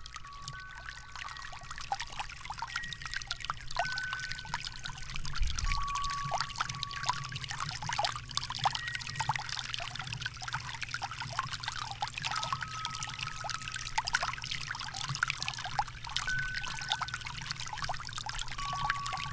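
Water splashing and trickling steadily, with single wind chime notes ringing out every few seconds at a few different pitches.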